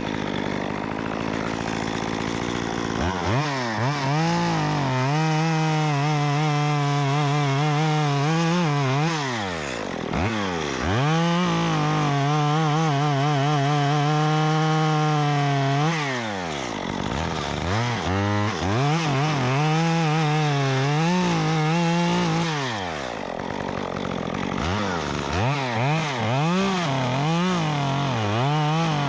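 Stihl MS 194T top-handle two-stroke chainsaw with a 1/4-inch pitch chain conversion, idling at first, then run up to full throttle for three long cuts through wood, dropping back between them, and revved in several short bursts near the end.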